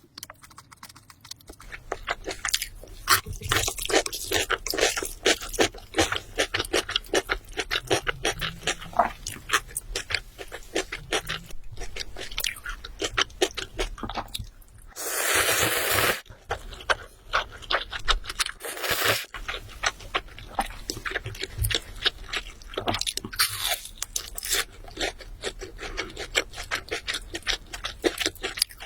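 Close-miked crunching and chewing of crispy fried chicken: a dense run of crackling crunches. About halfway through comes a louder rushing noise lasting about a second, and a shorter one a few seconds later.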